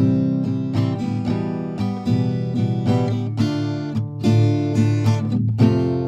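Background music led by plucked acoustic guitar, a run of picked notes.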